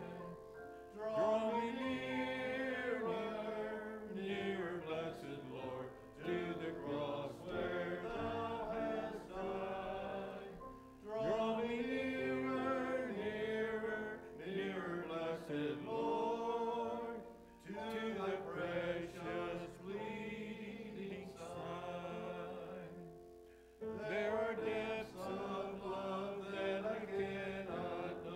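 Hymn singing, in phrases of about five seconds with short pauses between.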